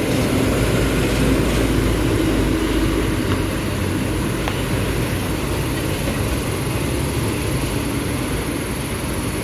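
Heavy vehicles on a rough, unpaved road: the diesel engine of a Mercedes-Benz coach bus and of small trucks running steadily at low speed, a little louder in the first few seconds, then easing slightly as the bus pulls away.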